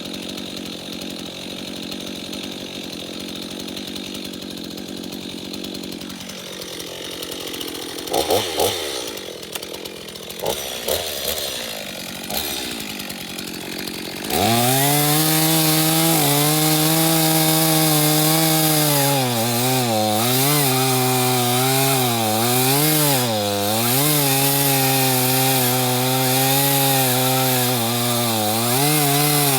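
Two-stroke engine of a Stihl MS 251 Wood Boss chainsaw idling, with a few knocks partway through, then opened up to full throttle about halfway in and cutting wood, its engine pitch dipping and recovering repeatedly under load.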